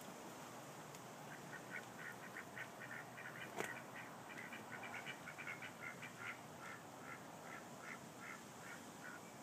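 Ducks quacking in a quick, faint run of short calls, several a second, starting about a second in. A single sharp click about three and a half seconds in.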